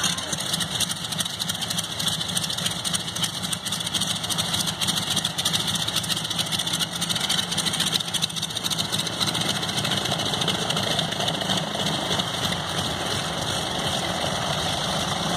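Twin radial engines of a Beechcraft C-45 Expeditor (Beech 18), Pratt & Whitney R-985 Wasp Juniors, running steadily at low power while the aircraft taxis.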